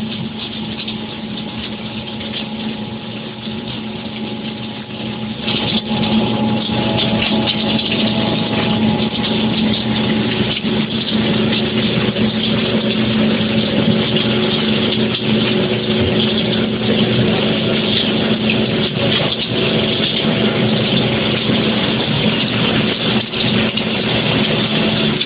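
Concrete kerbstone-making machine running: a steady electric-motor hum with mechanical clatter and knocks. It grows louder about five seconds in and stays at that level.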